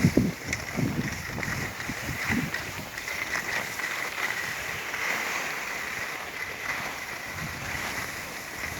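Skis sliding and scraping over a snow piste with wind on the microphone, a few low buffets in the first couple of seconds.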